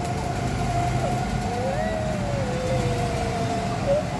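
Small gasoline go-kart engines running as karts circle the track: a steady drone with a held engine note, and a second engine note that rises and then falls about halfway through as a kart goes by.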